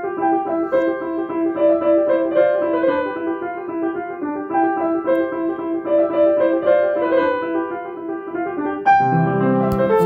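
Background piano music: a melody of single notes over a held lower note, with fuller, lower chords coming in about nine seconds in.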